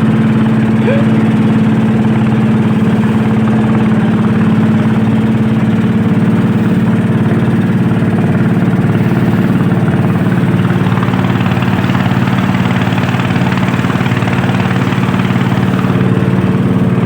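Klotok boat's engine running at a constant speed: a loud, steady drone that does not change in pitch.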